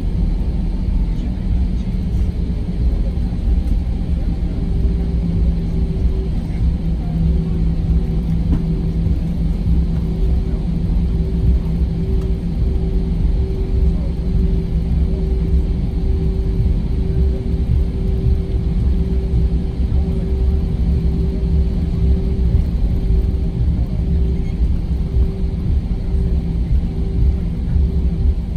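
Airbus A320 cabin noise at a window seat: a steady low rumble with a constant engine hum that holds one pitch throughout.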